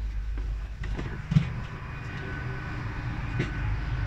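Steady low rumble inside a GWR Class 800 bi-mode train, from its underfloor diesel engines, heard from the vestibule. There is a sharp knock about a second and a half in, and a steady high tone begins about two seconds in.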